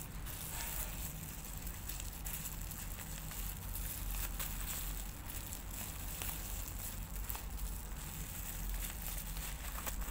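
Bubble wrap crinkling and crackling under fingers as a twine-tied parcel is unwrapped, a dense run of small crackles and clicks.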